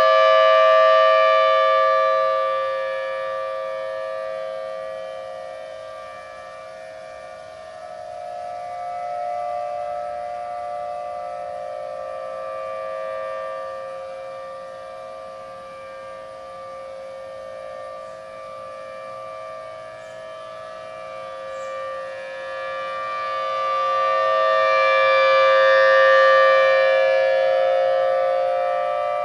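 Federal Signal Thunderbolt outdoor warning siren sounding a steady tone during a test. It is loud at first, fades as the rotating siren turns away, and swells back to full strength about 25 seconds in. Other sirens in the area sound underneath it.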